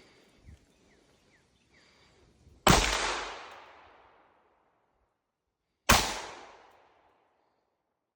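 Two gunshots from a firearm fired at a target, about three seconds apart, each a sharp crack whose echo trails off over a second or so.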